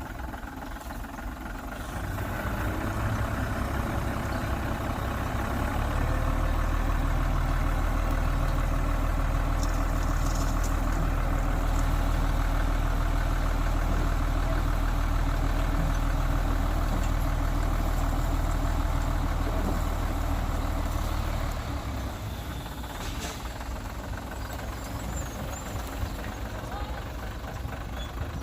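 Heavy diesel engine of a truck running steadily with a deep low rumble. It grows louder about two seconds in, is at its strongest through the middle, and eases off about three quarters of the way through.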